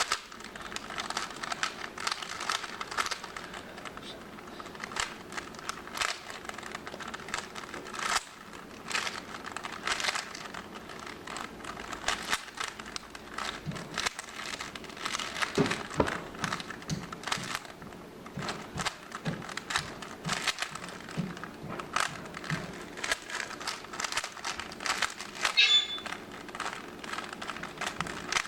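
A speed cube's plastic layers being turned rapidly by hand during a timed solve: dense, irregular clicking and rattling in quick flurries.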